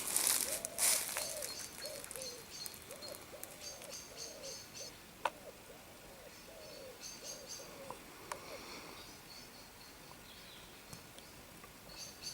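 Wild birds singing in woodland: a low call of short rising-and-falling notes repeated many times over about eight seconds, with higher chirps and trills from other birds above it. A loud rustle comes at the start.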